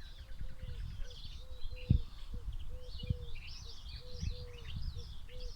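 Several small birds chirping and twittering in quick, overlapping calls, over a repeated short low note sounding a few times a second. Low rumbling and knocks sit underneath, with one louder thump about two seconds in.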